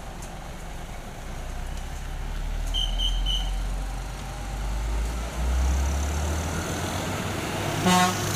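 Low rumble of a concrete mixer truck's diesel engine and passing road traffic, rising in pitch about five seconds in as the truck pulls away. A short horn toot sounds near the end.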